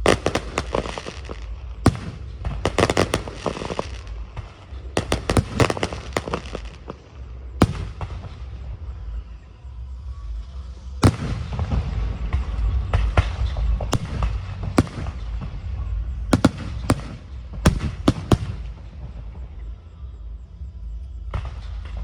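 Aerial fireworks display: shells bursting in quick clusters of sharp bangs with crackling between them, several single louder booms, and a brief lull near the end.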